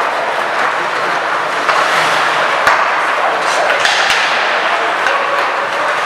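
Ice hockey in play: skate blades scraping on the ice, with several sharp clacks of sticks hitting the puck, most of them in the middle, over players' shouts.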